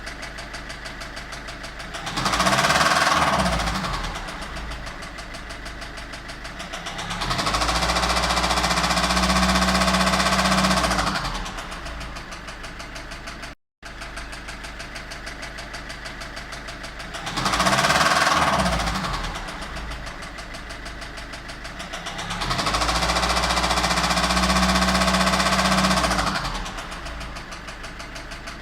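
Citroën C5's 1.6 HDi 110 hp diesel engine idling, then revved briefly and dropped back, then held at higher revs for about four seconds before returning to idle; after a short break the same sequence is heard again. The engine is making the noise the owner is investigating, tagged as a knock.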